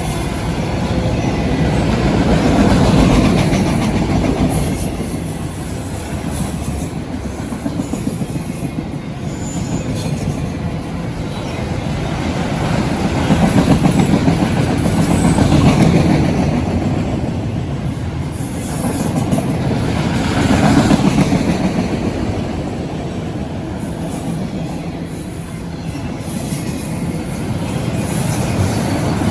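CSX freight train rolling past: a continuous rumble of steel wheels on rail that swells and eases every few seconds as the cars go by.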